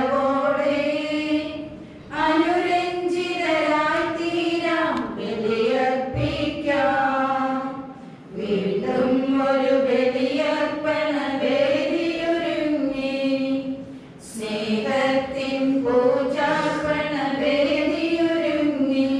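Liturgical chant sung by voices in long phrases of about six seconds each, with brief breaths between phrases.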